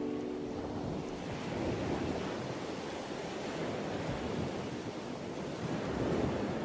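Sea surf washing over rocks: a steady rush that swells about two seconds in and again near the end.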